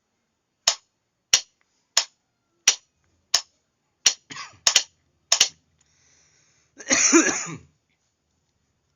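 Morse signals being sent by hand as a run of sharp clicks, about two-thirds of a second apart at first, then closer together in a quick cluster. A cough comes partway through, after the clicks.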